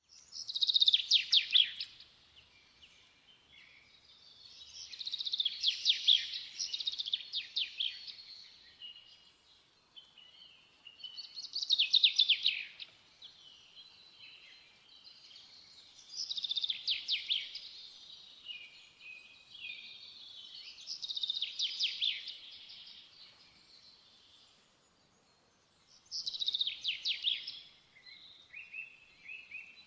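A songbird singing in short, rapid trilled phrases, high-pitched, repeated about every five seconds with quiet pauses between.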